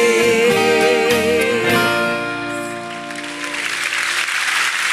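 A southern gospel singer holds the final note with a wide vibrato over the band's closing chord, and it all fades out about two seconds in. Audience applause then swells up through the last couple of seconds.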